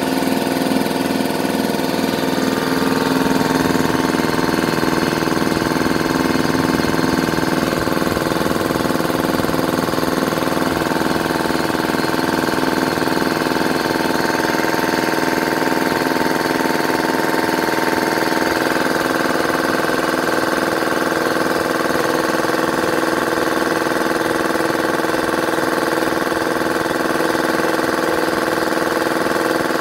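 Husky 30-gallon belt-driven, oil-lubricated air compressor running steadily near the end of filling its tank, a continuous motor-and-pump hum. Its belt guard is off.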